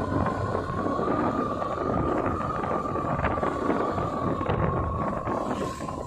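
Wind buffeting the microphone on a moving motor scooter, over the rumble of the ride, with a steady high-pitched whine that wavers slightly.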